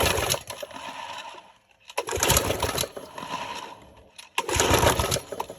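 Lawnmower engine pull-started three times, about two seconds apart, the recoil cord spinning the engine over briefly each time without it catching: the fuel tank is empty, so it won't start.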